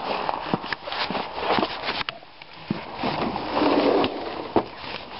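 Rustling handling noise from a handheld camera that is being carried and swung about quickly, with scattered knocks and clicks.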